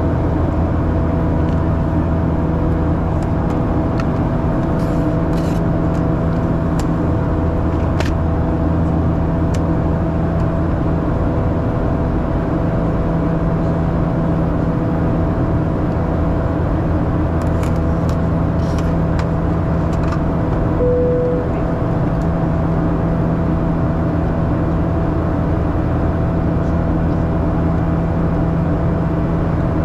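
Steady cabin drone of a Boeing 737-800 with its CFM56 engines running, heard from a forward seat: an even rush of noise under a constant low hum. A short tone sounds once, about twenty seconds in.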